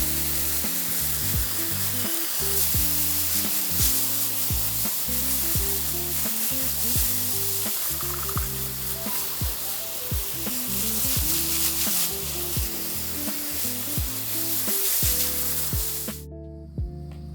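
Water spraying hard from a garden hose onto brick paving as it is washed down: a steady hiss that cuts off suddenly near the end.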